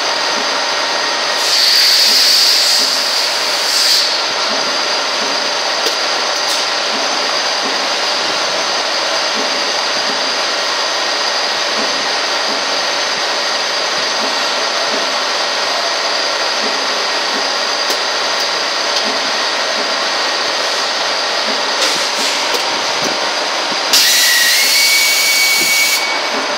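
Gear-cutting machinery and robot cell running with a steady mechanical drone and several steady whines. Two loud bursts of hissing air, each about two seconds long, come about two seconds in and again near the end.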